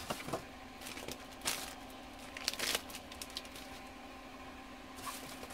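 Plastic parts bags rustling and crinkling as they are handled, in short scattered bursts spread through, over a faint steady low hum.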